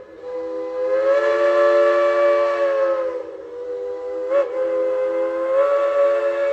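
Narrow-gauge steam locomotive whistle blowing long blasts, a chord of several notes at once that swells and eases in pitch as the valve is worked. It dips briefly about three seconds in, then sounds again, with a short click just after.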